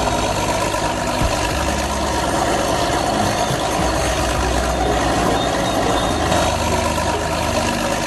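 A vehicle engine running steadily, like a truck or tractor idling.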